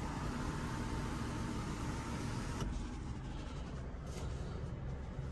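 Power sunroof motor of a Cadillac CTS running with a faint steady whine and hiss that cuts off about halfway through, over a steady low hum in the car's cabin.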